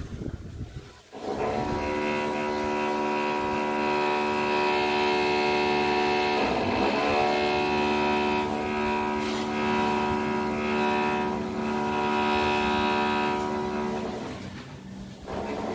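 Background music: one long held note, steady and unchanging for about twelve seconds, then fading out, after a second of wind on the microphone at the start.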